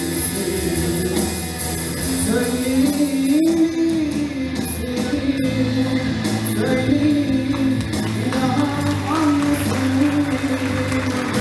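A school band playing a pop-rock song live: a melodic lead line over guitar and bass.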